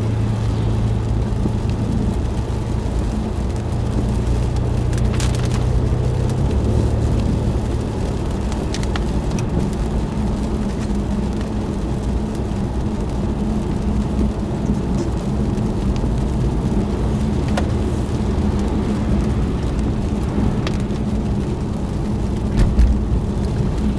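Car driving on a wet, water-covered road, heard from inside the cabin: a steady engine hum under the hiss of tyres and water. The engine note changes about six seconds in.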